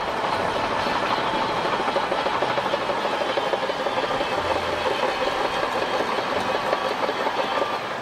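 Shantui crawler bulldozer at work: its diesel engine running under a steady, dense clatter from the steel tracks.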